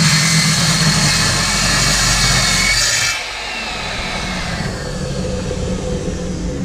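Skil worm drive circular saw with a Diablo Steel Demon blade cutting quarter-inch steel plate, a loud, harsh grinding of blade teeth through metal. About three seconds in the cutting noise drops off and the saw's whine falls slowly in pitch as the blade winds down.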